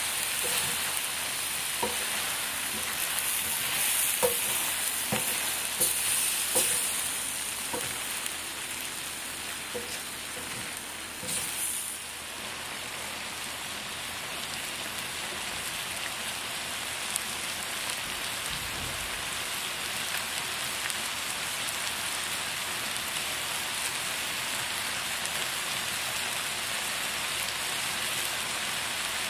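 Spicy stir-fried webfoot octopus and pork belly sizzling in a frying pan, with a utensil clicking and scraping as it is stirred through roughly the first twelve seconds, then a steady sizzle.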